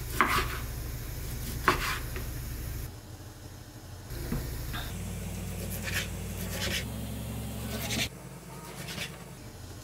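Knife cutting raw pork on a cutting board: a short knock or scrape of the blade every second or two, over a low hum that shifts abruptly a few times.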